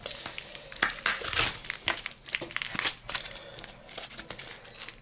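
A plastic mailing bag and its glued-in packing being torn open and handled, with irregular crinkling and tearing rustles, loudest about a second in.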